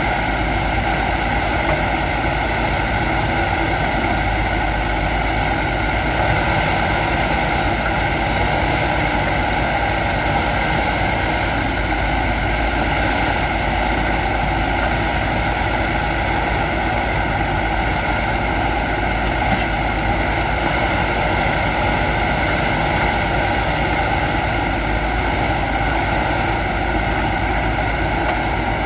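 Diesel engine of a backhoe loader running steadily, holding an even note.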